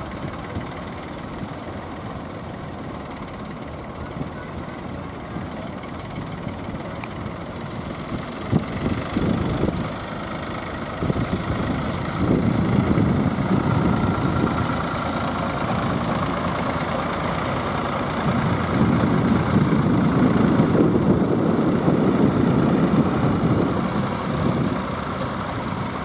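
Ford tractor engine running as the tractor moves off pulling a mounted plough. It gets louder about twelve seconds in and is loudest around twenty seconds in as it comes close.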